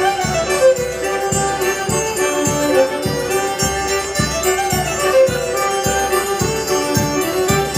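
Polish folk band of two violins, accordion and drum playing a dance tune, the violins carrying the melody over a steady drum beat.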